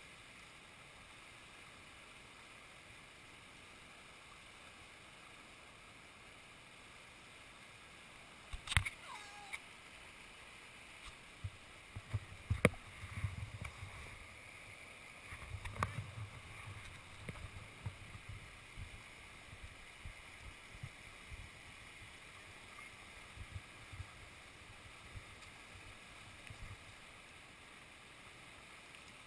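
Steady rush of whitewater rapids. About a third of the way in come a few sharp knocks and low rumbling bumps on the microphone, which is jostled and tipped toward the water.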